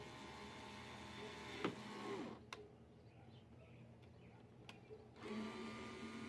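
Cordless drill motor whining steadily as it bores into a PVC pipe, then winding down to a stop about two seconds in. After a quieter pause with two sharp clicks, it starts up again near the end.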